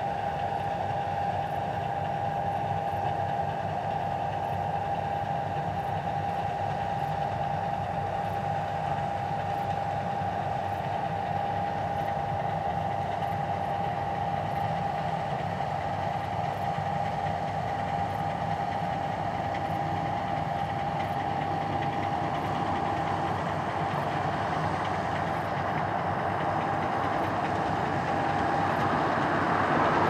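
John Deere C670i combine harvester running at work in the field: a steady engine rumble with a constant high whine over it, getting louder and noisier in the last few seconds.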